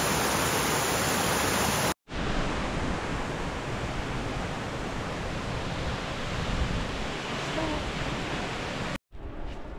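Waterfall rushing steadily for about two seconds, then cut off. It is followed by a softer steady outdoor rushing noise, and after another sudden cut near the end, a quieter hush.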